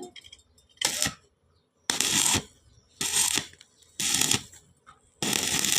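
Five rhythmic scraping strokes, each about half a second long, coming about once a second.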